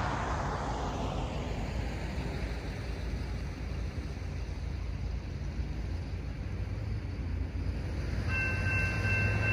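A steady low rumble and hiss, with a passing sweep of road noise falling away in the first two seconds. About eight seconds in, the railroad crossing's electronic warning bell starts sounding a steady high tone as the crossing activates for an approaching train.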